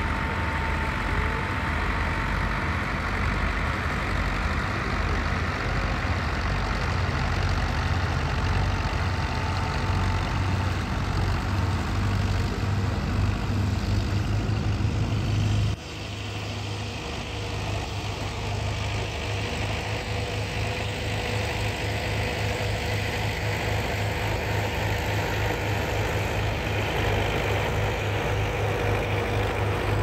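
Engine of a Matbro Mastiff four-wheel-drive Fordson Major conversion running steadily with a low pulsing throb while it pulls a disc harrow. About halfway through, the engine sound drops suddenly, then builds back up.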